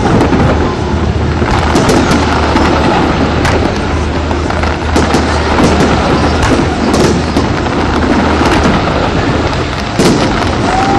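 Fireworks exploding in a dense, continuous barrage, with many sharp bangs and crackles overlapping throughout.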